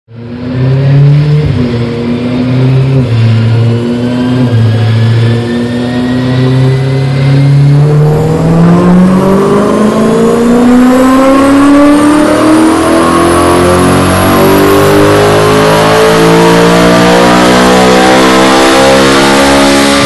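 BMW E92 M3's S65 V8 on a chassis dyno, breathing through an X-pipe, Gruppe M intake and Tubi exhaust. It revs in short uneven steps at first, then makes a long wide-open-throttle pull, the pitch rising steadily for about twelve seconds to high revs.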